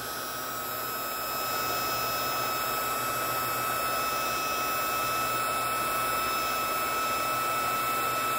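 Heat gun blowing hot air steadily to shrink heat-shrink tubing, its fan running with a thin steady whine, getting a little louder about a second in.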